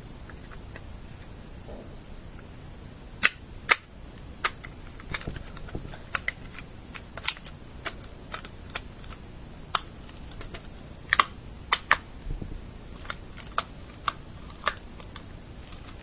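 Irregular sharp plastic clicks and taps, about twenty of them, as the two halves of a Nintendo GameCube controller's shell are pressed and worked together during reassembly.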